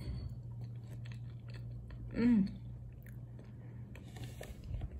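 A person chewing a mouthful of soft wheat-biscuit cereal soaked in milk, with small wet clicks of the mouth. About two seconds in comes a short hummed 'mm' from the eater.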